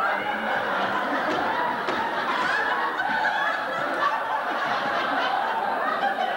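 An audience laughing and chuckling, many voices overlapping.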